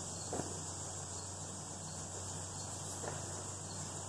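Steady chirring of insects in the background, with a faint clink of riveted steel mail rings about half a second in and again around three seconds as the hauberk is handled.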